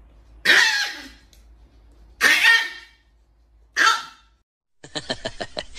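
A calico cat hissing in three short, harsh spits about a second and a half apart at a Chihuahua. Near the end a rapid run of clicks begins.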